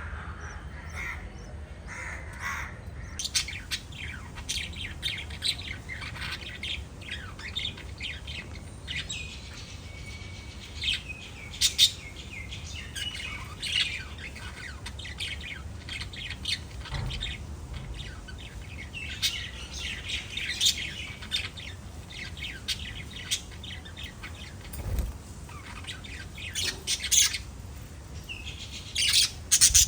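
A group of small pet parrots chirping and chattering continuously in quick, high-pitched calls, with a few louder sharp calls standing out, the loudest near the end.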